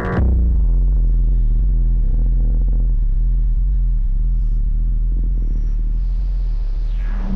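A loud, steady, deep rumbling drone that starts abruptly, with faint sustained tones above it, and a brief whooshing sweep near the end.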